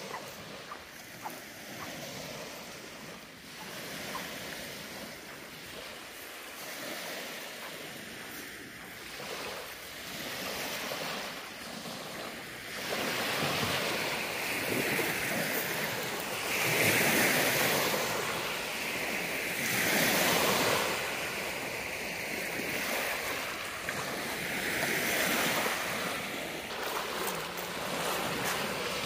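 Small Lake Michigan waves breaking and washing up on a pebbly sand shore, each surge swelling and falling back every few seconds. The surf grows louder about halfway through.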